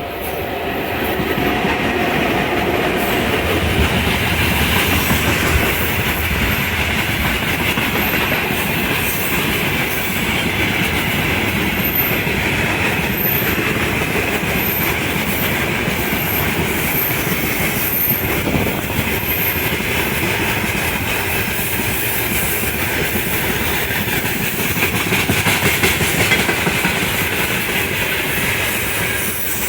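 A freight train hauled by a VL10U electric locomotive rolling past, its wheels clacking over the rail joints in a steady run of clicks and rumble. The sound swells in the first second, then holds loud.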